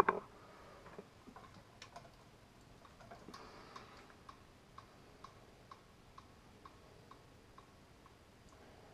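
Faint, regular ticking, about two ticks a second, after a short knock at the very start.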